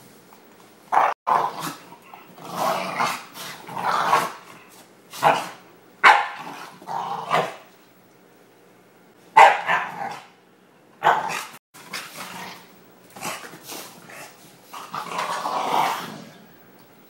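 Two dogs, a red-nose pit bull and a smaller black-and-white dog, play-fighting with repeated growls and barks in short bursts. There is a pause of over a second about eight seconds in, and a longer growl near the end.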